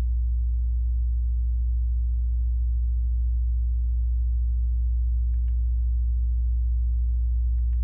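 Steady, unchanging low-pitched hum with a few fainter higher overtones, the noise complained of in a high-rise apartment. Two faint ticks come about five seconds in.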